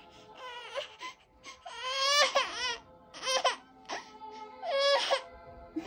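Toddler crying in four wavering wails, the longest about two seconds in, over lullaby music playing throughout.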